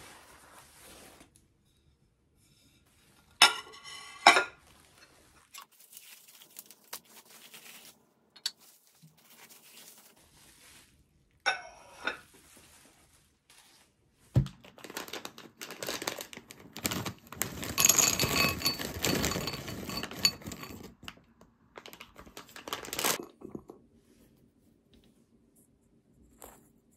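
Tableware and packaging being handled: a couple of ringing clinks of dishes, another later and a sharp knock, then several seconds of wrapping crinkling and tearing.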